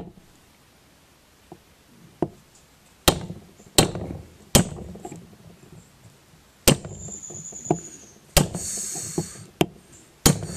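A hammer striking another hammer whose head is held on a stuck valve in a Hercules ZXB engine block: about nine sharp metal taps at uneven intervals, one leaving a brief high ring. The taps drive the rust-stuck, partly open valve back down to work it loose after penetrating oil.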